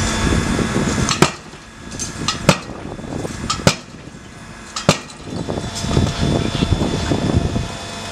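Four hard, sharp hammer-like blows about a second and a quarter apart, with a few lighter knocks between them. They come from firefighters striking at the burnt shopfront with a tool, over a steady hiss and rumble.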